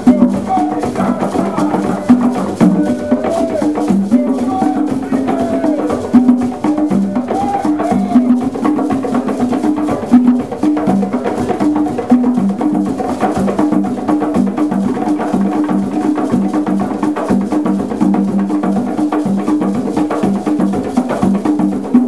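An ensemble of tall hand drums played live in a fast, steady, interlocking rhythm.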